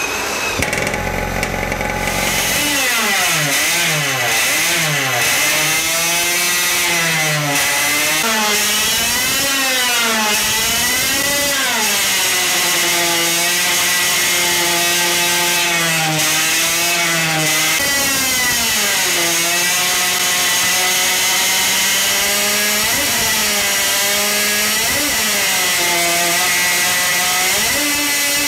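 High-revving two-stroke engine running under load on a dyno. Its pitch surges up and down over the first ten seconds or so as the dyno's load control tries to hold a steady speed, then holds near 11,000 rpm with a few brief dips, and climbs toward about 17,500 rpm near the end.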